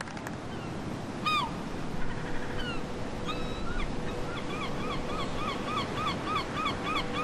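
Surf washing on the shore with a gull calling over it: a single yelp about a second in, then from about halfway an even run of short yelps, about three a second.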